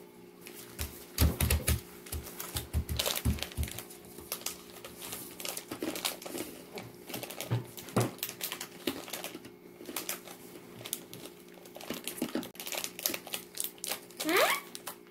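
Plastic snack packet being picked at and torn open by hand: a rapid, uneven run of crinkles and small clicks, with a few low knocks in the first few seconds.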